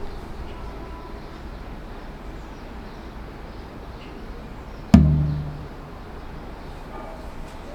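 A single sharp knock about five seconds in, with a short low ringing after it, over a faint steady background.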